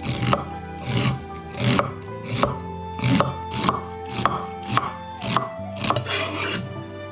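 Knife chopping on a wooden cutting board in steady strokes, a little under two a second, stopping shortly before the end, over background music.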